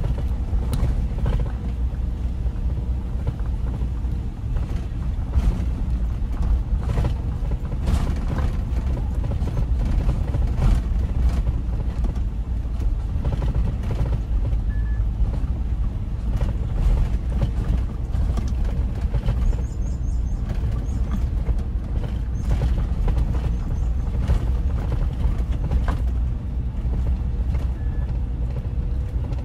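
Car driving: a steady low rumble with frequent short knocks and creaks.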